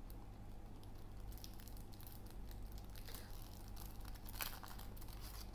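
Faint rustling and crinkling of a paper sleeve as thin metal positioning tools are handled, with scattered light clicks, the sharpest about four and a half seconds in, over a steady low hum.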